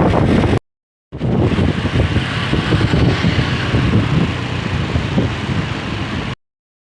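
Wind buffeting the microphone over the rumble of a road vehicle on the move. A half-second gap of silence falls about half a second in, and the noise cuts off suddenly shortly before the end.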